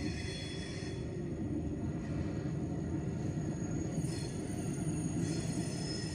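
A train rumbling at a railway station, a steady low rumble. Faint high-pitched whining tones come in at the start, again about four seconds in, and from about five seconds on.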